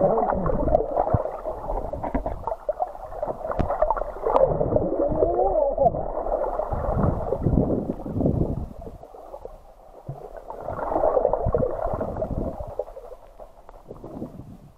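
Muffled underwater water noise from a camera below the surface: irregular sloshing and gurgling with scattered knocks, a brief wavering tone about five seconds in, and a fade near the end.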